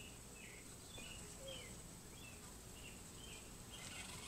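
Faint outdoor background of a bird chirping, short repeated notes about twice a second, over a steady high insect-like hum.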